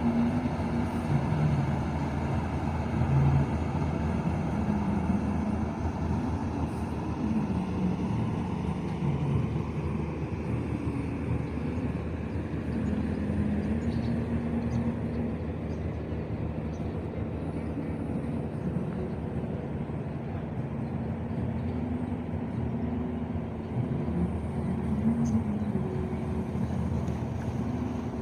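Steady outdoor background noise with a low hum that wanders slightly in pitch.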